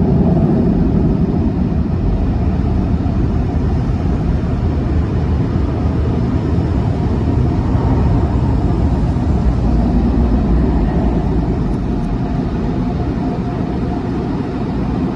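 Sonny's car wash dryer blowers running, a loud steady roar of air heard from inside the car. The whine in the roar fades and the level eases a little as the car pulls out of the tunnel.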